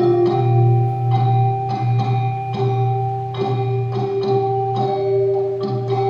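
Gamelan music: bronze metallophones struck at a steady, even pulse over a low, long-ringing tone.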